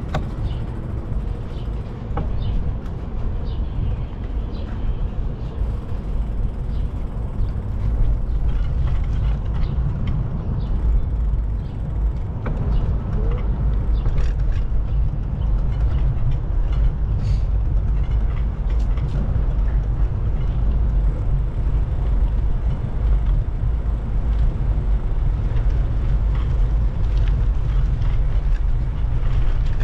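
Steady low rumble of wind and road noise from riding a bicycle, with scattered light clicks and rattles.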